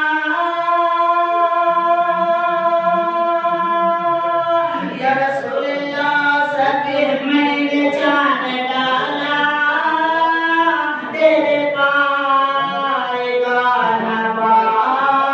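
A man singing an Urdu naat unaccompanied. He holds one long note for about four and a half seconds, then moves into an ornamented, melismatic melody.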